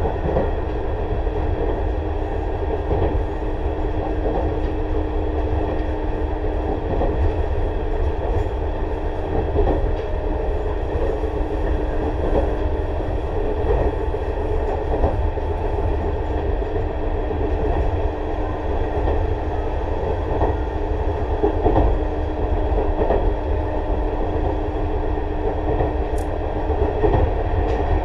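Tobu 6050 series electric train running at steady speed, heard from inside motor car MoHa 6169. A continuous rumble of wheels on rail carries a steady hum from the TM-63 traction motors and gearing, with occasional knocks from rail joints.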